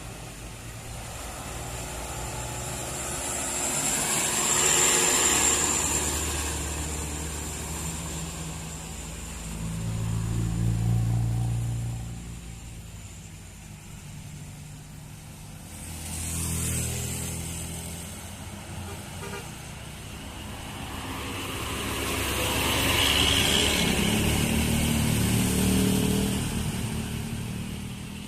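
Road traffic climbing a hill: about four vehicles, buses among them, pass one after another with engines running, each swelling and fading away, the longest pass near the end.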